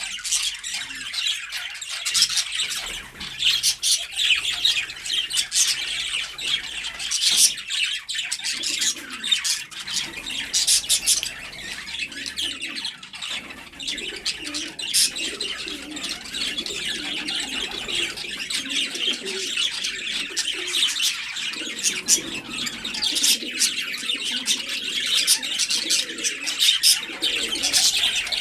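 Many small birds chirping busily, with pigeons cooing low underneath from about a third of the way in.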